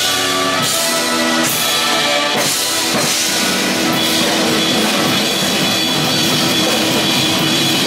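Two drum kits played together in a drum battle, backed by a big band whose horns hold sustained chords. There are several heavy accented hits in the first three seconds, then continuous drumming under a held chord.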